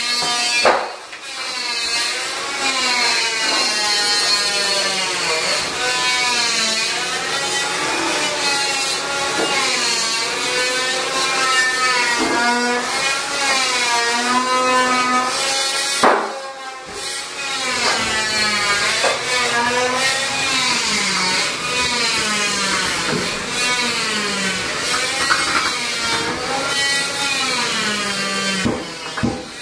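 Paper towel squeaking as it is rubbed back and forth over wet shower glass, a loud squeal whose pitch wavers up and down with each stroke. It breaks off briefly about a second in and again about halfway through.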